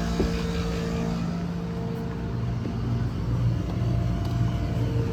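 Steady mechanical hum of a Ruud HVAC unit running in cooling with its condenser fan not turning, the coil running very hot. A low pulsing rumble joins in about halfway through.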